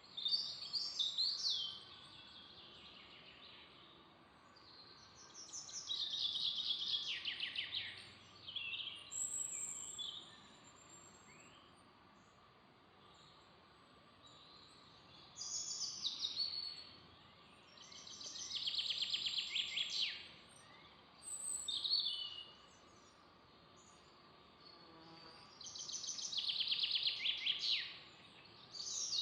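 Songbirds singing in a forest: short phrases of song every few seconds, several of them fast trills of rapidly repeated notes, with quiet gaps between.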